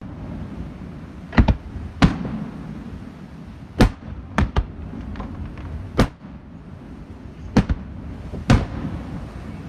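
Aerial fireworks shells bursting: about ten sharp bangs a second or so apart, some in quick pairs, over a steady low rumble.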